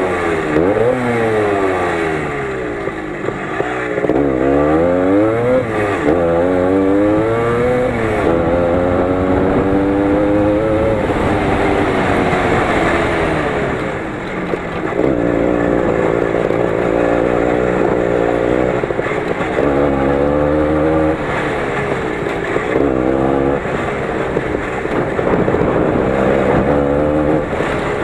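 20 hp Lider motorcycle engine under load while ridden off-road, its pitch climbing and falling every second or two as the throttle is worked. After that it settles into longer, steadier runs, with a brief drop in revs about halfway through.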